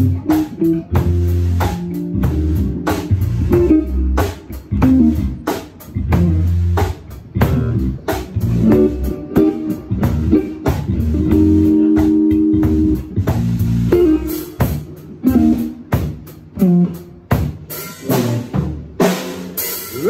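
Live blues-rock band playing an instrumental passage: electric guitar over bass guitar and a Canopus drum kit keeping a steady beat.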